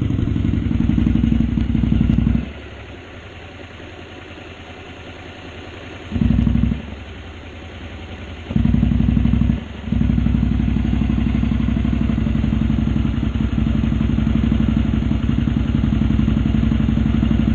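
Warmed-up Honda Varadero 125 V-twin four-stroke engine running steadily with a light mechanical ticking and clatter, which the owner takes as typical of valve clearances. The deep low part of its sound falls away for a few seconds twice, between about two and nine seconds in, leaving the higher clatter.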